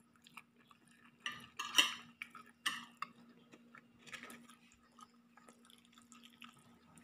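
A metal spoon scraping and clinking against a stainless steel pot as food is scooped out, in a few short clatters during the first half, over a steady low hum.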